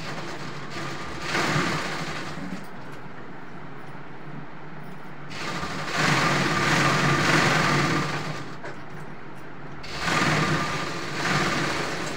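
Jack industrial sewing machine stitching in short runs: four spurts of running over a steady workshop hum, the longest about three seconds in the middle.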